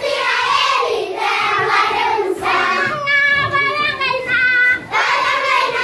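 A group of schoolchildren singing loudly together, with long held notes in the middle of the phrase.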